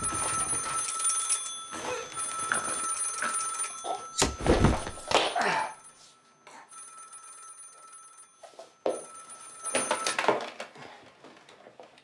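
A landline telephone's bell rings in long bursts, twice, with a short break inside the second burst. Between the rings, about four seconds in, comes a heavy thud: a body dropping to the floor as a hanging knot gives way.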